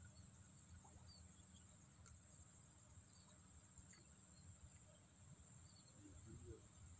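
A steady high-pitched insect trill, like a cricket, runs without a break over a low background rumble, with a few faint chirps.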